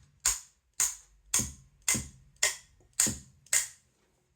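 A hammer tapping lightly on the threaded end of a vintage blower motor to free a stuck part: seven short, sharp metallic taps at a steady rate of about two a second, stopping near the end.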